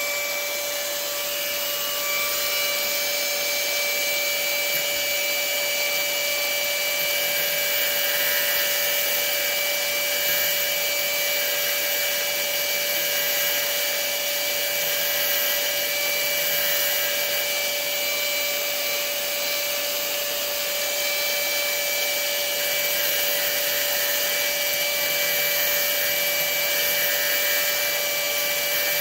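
Power grinder running steadily with a constant whine while it grinds the steel of a screw-in arrow field point.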